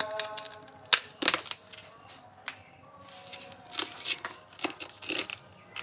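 Hands handling a mud-caked car fender piece and breaking dried dirt off it, giving scattered sharp clicks and knocks: a loud pair about a second in and several more near the end.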